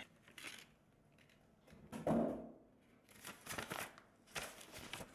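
Cardboard packaging and paper being handled: a brief scrape about two seconds in, then soft, intermittent rustling and crinkling.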